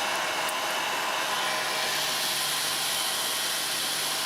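Hairdryer blowing steadily, its motor humming under the rush of hot air, used to shrink heat-shrink tubing over soldered wire joints.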